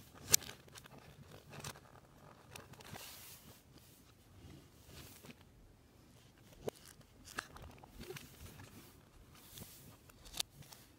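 Plastic Lego Technic parts being handled and set down on a tabletop: scattered small clicks and taps, the sharpest just after the start, with soft rustling between.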